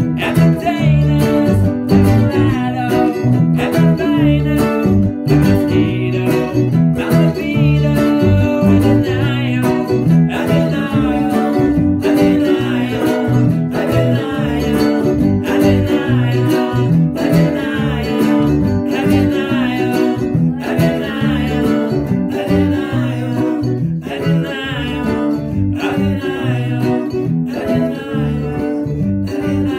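Ukulele strummed in a steady rhythm with a voice singing over it.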